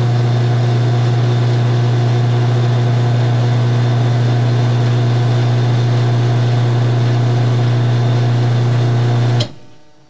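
Half-horsepower Craftsman garage door opener's electric motor running steadily with a deep hum, driving the door, then cutting off abruptly with a click about nine and a half seconds in.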